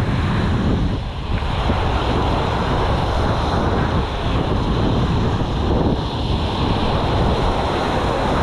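Small surf breaking and washing up a sandy beach, with wind buffeting the microphone.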